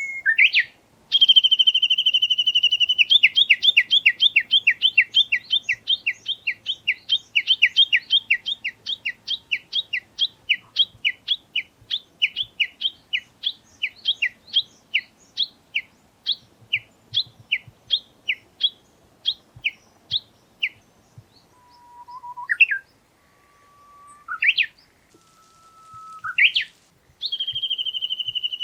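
Japanese bush warbler giving its 'tani-watari' call: a held note, then a long run of rapid repeated notes that gradually slows over nearly twenty seconds. Then come a few low held whistles, each ending in a sharp upward sweep, and near the end a new held note begins another run.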